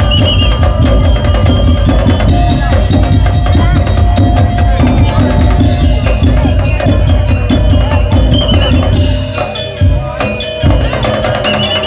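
Daul percussion ensemble playing: dense, driving drums with wood-block-like knocks under sustained melodic tones. The drums briefly drop away about ten seconds in, then come straight back in.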